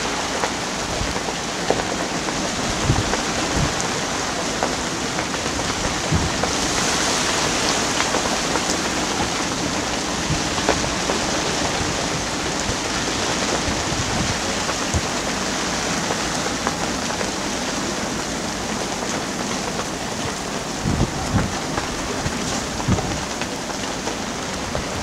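Squall of wind and rain making a steady, even hiss, with a few brief low thumps of gusts buffeting the microphone.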